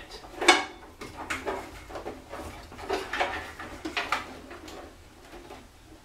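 Irregular clicks and knocks of power connectors being worked loose from the DVD drives inside a desktop computer's metal case, with cables rattling; the sharpest click comes about half a second in.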